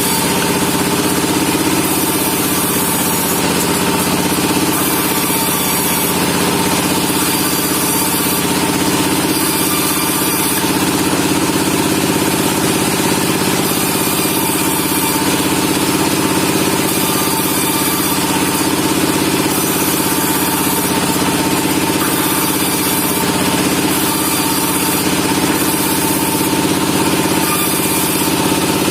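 Sawmill machinery running steadily while pine logs are sawn: a constant engine-like drone with steady tones. Short bursts of high hiss come and go every second or two.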